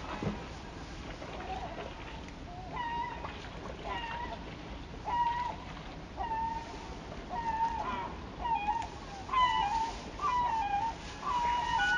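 Gulls calling over and over, short pitched calls about once a second that start a few seconds in and come faster toward the end, over a steady rush of river water.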